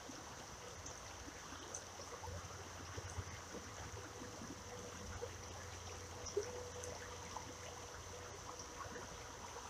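Creek water running faintly and steadily.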